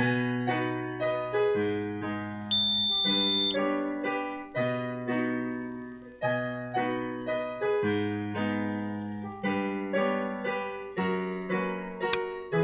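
Solo piano music, notes and chords struck one after another and left to fade. About two and a half seconds in, a smoke alarm gives one high beep about a second long.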